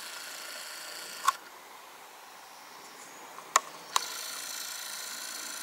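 Quiet room tone with a steady high hiss, broken by three sharp clicks: one about a second in and two close together past the middle, typical of a handheld camera being handled.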